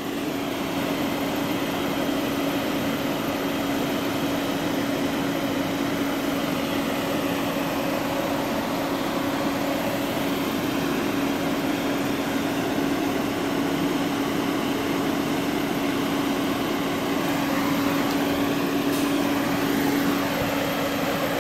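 Fire trucks' engines running steadily: a constant low hum with a fainter higher tone above it, over a steady rushing noise.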